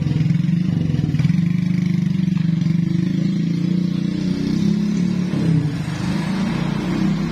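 A motorcycle engine running steadily at an even speed.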